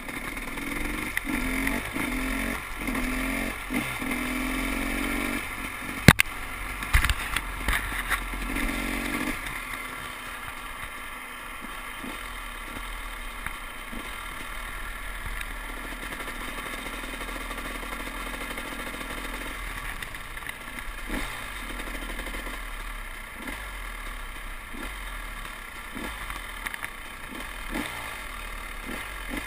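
KTM 300 XC-W two-stroke single-cylinder dirt bike engine accelerating, its pitch rising and breaking off several times as it goes up through the gears. There is a sharp knock about six seconds in. From about nine seconds in the engine drops back to a quieter, steady low-throttle run.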